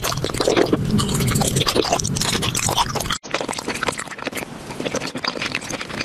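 Close-miked chewing and crunching of candy: dense, crackly eating sounds that break off briefly about three seconds in.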